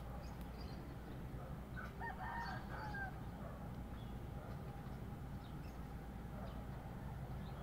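A single faint rooster crow about two seconds in, lasting about a second and falling off at the end, over a steady low background hum.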